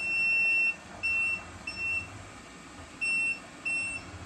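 OKP Life K5 robot vacuum's locator alarm beeping: a long high electronic beep, then shorter beeps mostly in pairs, set off by the find-robot button so a lost or stuck robot can be found.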